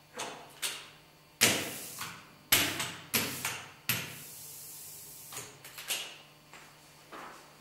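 Knocks and clatter of a hand ink roller and tools being handled on a wooden side table with an ink slab in a letterpress workshop. The two loudest knocks come about one and a half and two and a half seconds in, with a quick run of smaller knocks after them, then about a second of steady noise and a few light clicks.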